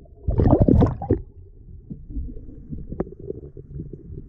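Seawater churning and bubbling, heard underwater and muffled: a loud splashy burst about half a second in, then a low rumble with scattered light ticks.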